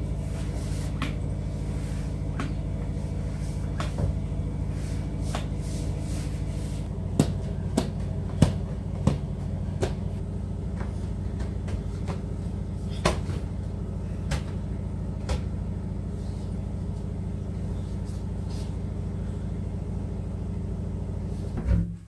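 Cupboard doors being handled, with scattered knocks and clicks, the loudest clustered around the middle, over a steady low hum.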